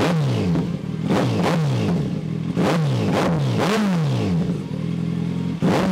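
Kawasaki Z900's 948 cc inline-four, fitted with an aftermarket exhaust, idling and given about seven quick throttle blips, each revving up sharply and falling back to idle. The engine is still warming up.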